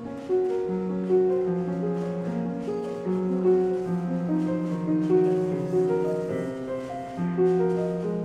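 Slow keyboard music of held, overlapping notes.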